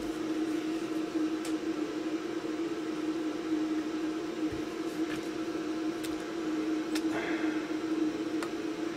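Steady hum from bench equipment while a circuit board is soldered, with a few faint light ticks.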